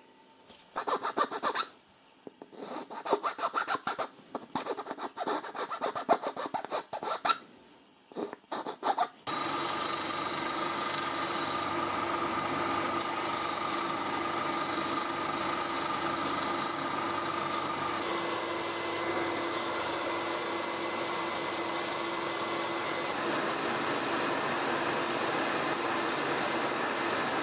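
Irregular rasping strokes as a small wooden piece is smoothed by hand, for about the first nine seconds. Then a steady machine noise of workshop power tools running without a break: a combination belt-and-disc sander with the piece held against its disc, and near the end a scroll saw cutting.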